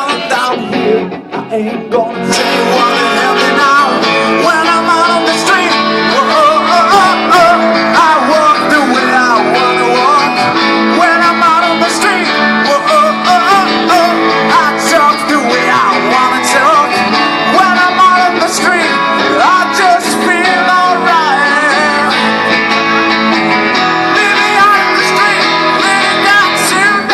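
Live song: two acoustic guitars played together, strummed and picked, under a singing voice. The music thins briefly in the first two seconds, then runs full.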